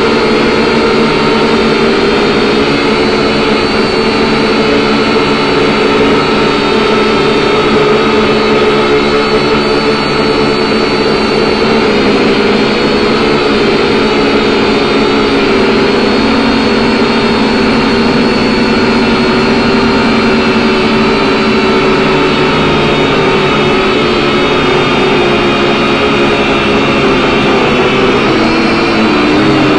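Small drone's electric motors and propellers whining steadily close to the microphone, the pitch wavering slightly near the end.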